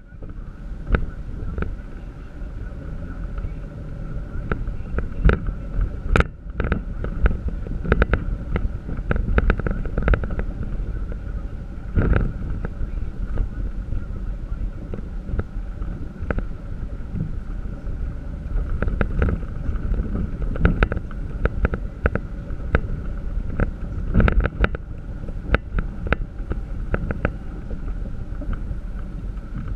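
4x4 driving slowly over a rough dirt forest trail, heard from inside the cab: a steady low engine and road rumble with frequent sharp knocks and rattles as it bounces over the uneven ground.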